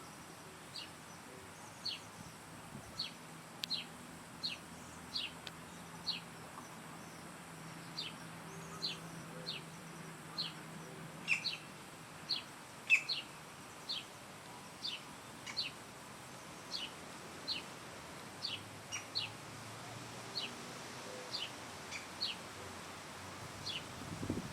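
A bird repeating a short, sharp, high call note over and over, a little more than one note a second, each note sliding quickly downward. A steady hiss of outdoor background sits beneath it.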